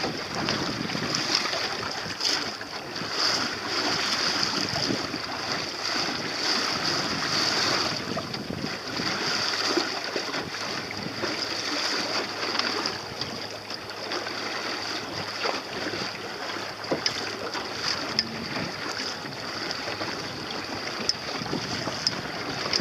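Wind and water rushing past a sailing boat under sail, a steady noise that swells and eases, with wind buffeting the microphone.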